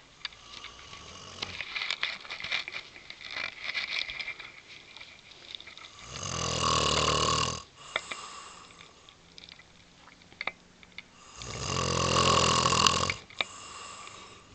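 A sleeper snoring on a couch: two loud, drawn-out snores about five seconds apart, each nearly two seconds long.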